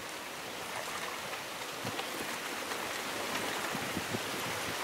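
Shallow pond water sloshing and splashing around the legs of people wading through it, a few soft sloshes over a steady watery hiss.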